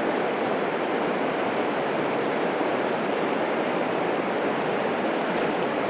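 River water rushing steadily, a constant even rush of current.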